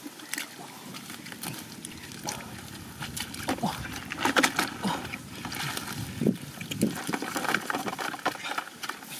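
Hands splashing and groping in shallow muddy water while catching small fish, an irregular string of splashes and small knocks that grows busier after a few seconds.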